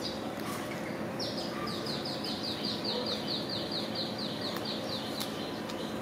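A bird calling: a rapid run of short, high notes, each sliding down, about five a second, starting about a second in and lasting some four seconds. A steady low hum and a few faint clicks lie under it.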